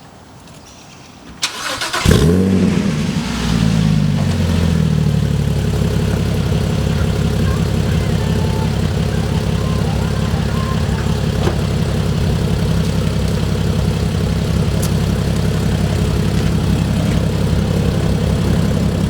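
Porsche 987 Cayman's flat-six engine cranked and started: it catches with a brief flare and settles within a few seconds into a steady idle.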